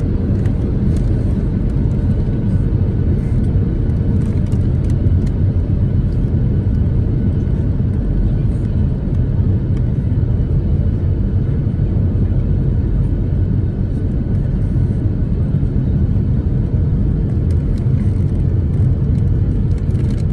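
Steady low rumble of a Boeing 737-700's CFM56 jet engines and the rushing airflow, heard inside the cabin during the descent on approach.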